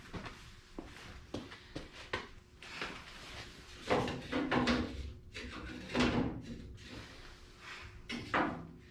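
Irregular knocks, clicks and rattles of a grille being handled and test-fitted into a truck's front end, with louder clunks about four, six and eight seconds in.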